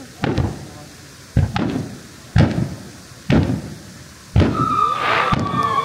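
Aerial firework shells bursting: five sharp bangs about a second apart, each dying away briefly. From about four and a half seconds a long, steady high whistle-like tone sounds over the bursts.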